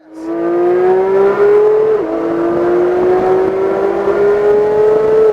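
Porsche 911 GT3's naturally aspirated flat-six at wide-open throttle, heard from inside the car, its pitch climbing steadily through the gears. It shifts up with a sudden drop in pitch about two seconds in, then climbs again and shifts once more at the very end.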